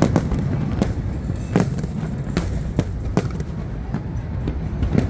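Fireworks bursting overhead: an irregular run of sharp bangs, roughly two a second, over a steady low rumble.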